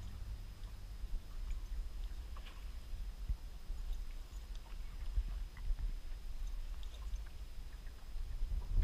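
Wind rumbling on the microphone over open water, with faint scattered ticks and small slaps of water against the boat.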